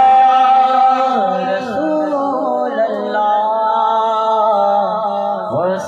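A man singing a Sindhi naat, holding long drawn-out notes that bend slowly in pitch over a steady low drone, with a short break near the end before the next phrase begins.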